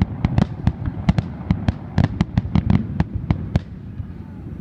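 Fireworks finale barrage: many shell bursts going off in quick succession, several sharp bangs a second, thinning out about three and a half seconds in.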